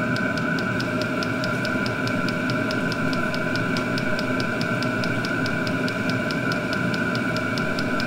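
XVentures portable diesel heater running on its first startup: a steady whine from its fan with a rapid, even ticking of the fuel pump, about five ticks a second.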